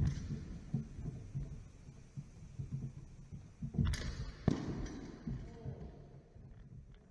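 Fencers' feet thumping and shuffling on a wooden sports-hall floor during sidesword-and-dagger sparring, with steel training blades striking: a sharp knock at the start and two clashes about four and four and a half seconds in, the second ringing briefly.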